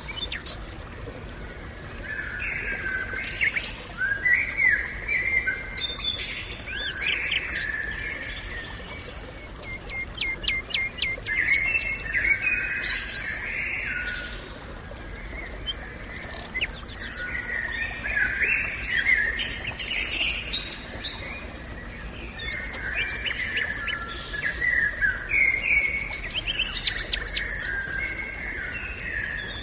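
Several songbirds singing and calling over one another in a forest, in varied short phrases with some quick trills of repeated notes, over a steady low background noise.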